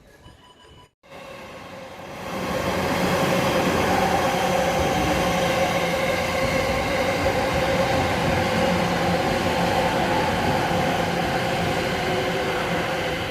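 Sobu Line electric commuter train running along a platform on continuous welded long rail: a loud, steady rush of wheels and running gear with a steady hum, rising in from about two seconds in, without the clickety-clack of rail joints.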